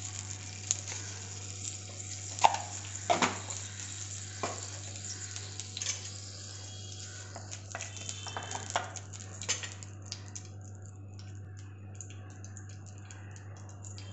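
Mustard seeds sizzling and crackling in hot coconut oil in a clay chatti, with scattered sharp pops and clicks, the loudest a few around two to three seconds in, thinning out towards the end. A wooden spatula stirs and scrapes in the pot.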